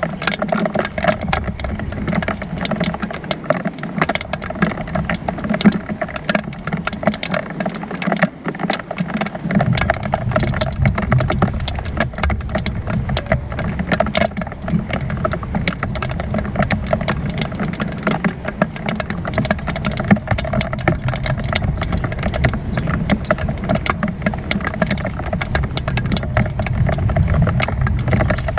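Steady rain, heard as a dense, close patter of individual drops tapping. A low rumble comes in underneath about ten seconds in and carries on.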